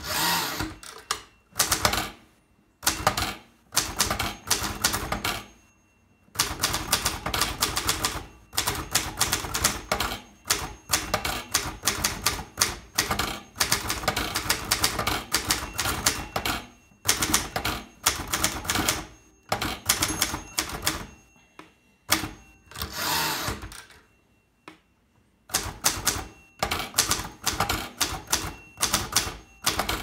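Zeta manual typewriter being typed on: runs of rapid key and typebar strikes broken by short pauses. At the start the carriage is returned.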